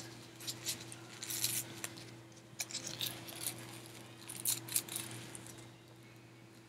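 Crinkling and rustling of a small plastic blind-bag toy packet being handled and torn open by hand, in short scattered bursts over a faint steady hum.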